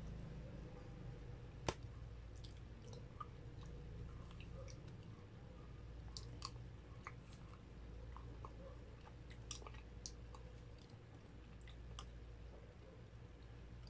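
Close-up chewing and mouth sounds of someone eating breaded corn dogs, with scattered small clicks and one sharp click about two seconds in, over a low steady hum.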